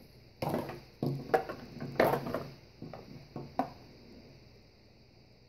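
Handling noise from unpacking: a run of knocks, clatters and rustles as plastic parts and packaging are moved about, loudest in the first two seconds and dying down after about three and a half seconds.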